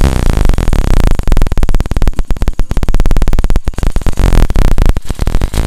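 Hero Passion Pro motorcycle's single-cylinder engine running loud and close, without the timing-chain rattle (a 'kilkil' ticking) that a replacement bolt has cured.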